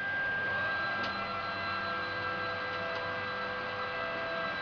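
Steady electrical hum made of several held tones over a light hiss, with a faint click about a second in.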